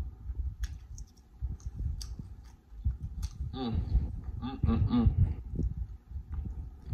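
A man chewing a mouthful of food with his mouth closed, close to the microphone, with small wet mouth clicks and smacks. About three and a half seconds in come a few short hummed "mm" sounds.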